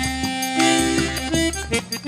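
Accordion (sanfona) playing a melody of held and quick notes over low sustained bass tones.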